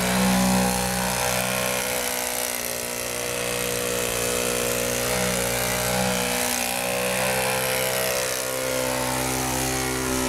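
Radio-controlled aerobatic model plane's motor and propeller running at hover throttle as the plane hangs nose-up in a torque roll. The pitch rises and falls a little with small throttle corrections.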